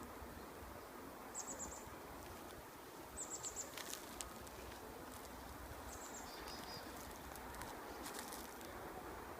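Outdoor ambience in mountain woodland: a steady low background hiss with short, very high-pitched chirps in quick runs of four or five, heard three or four times, and a few faint clicks.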